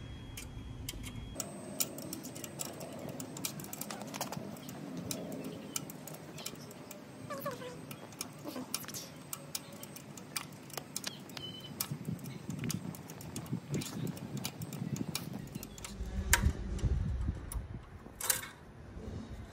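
An Allen key clicking and scraping against the baffle bolt at the end of a Triumph Scrambler 1200's TEC exhaust as the baffle is undone. It makes a string of scattered small clicks and taps, with louder knocks and handling noise near the end.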